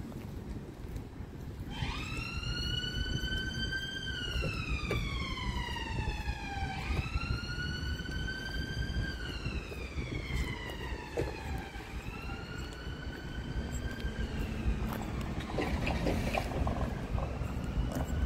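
Emergency vehicle siren wailing in the distance, a slow rise and fall repeating about every five seconds. It starts about two seconds in and grows fainter in the second half.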